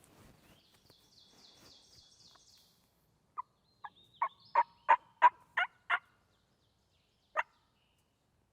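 A series of about eight loud turkey yelps a few tenths of a second apart, followed by one more yelp about a second and a half later. A faint, high songbird trill comes before them.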